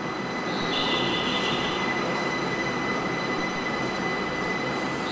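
Linimo HSST maglev train moving past the station platform's screen doors: a steady running hum with a thin high whine over it.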